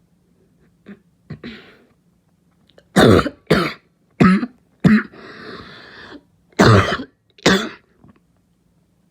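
A person's harsh, barking cough: a couple of small coughs, then a fit of loud coughs starting about three seconds in. Four come in quick succession, then a long noisy breath, then two more.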